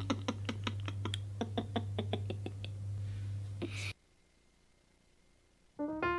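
A young girl giggling in quick breathy pulses that slow and fade over about three seconds, ending in a short intake of breath, with a steady low hum underneath. The sound then cuts to silence, and a sustained keyboard chord begins just before the end.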